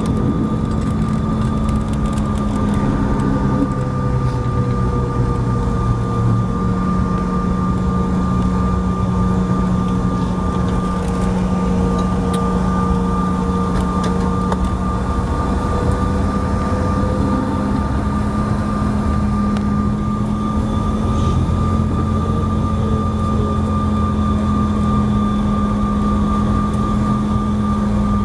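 The CRJ-700's rear-mounted GE CF34-8C turbofans running steadily after touchdown, heard inside the cabin: a loud low hum under a constant high whine, with one middle tone sagging slightly and rising again near the end.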